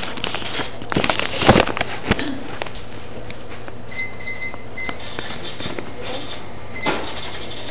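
Clothing rubbing and knocking against a covered camera microphone, loudest about a second and a half in. A few short electronic beeps from a cash register keypad follow about four seconds in, and one more comes near the end.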